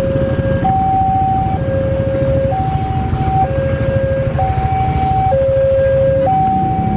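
Railway level-crossing alarm sounding its two-tone electronic warning: a lower and a higher tone alternating steadily, each held just under a second, the signal that a train is approaching with the barrier down. A steady low rumble runs underneath.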